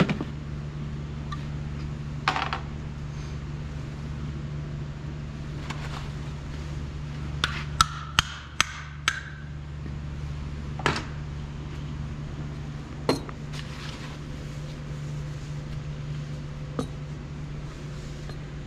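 Scattered sharp metal taps and clinks of tools and engine parts being handled during engine assembly, with a quick run of five about halfway through, over a steady low hum.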